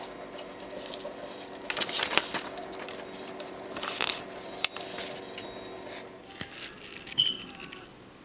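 Printer running with a steady hum that stops about six seconds in, while a freshly printed sheet of paper is picked up and rustles several times.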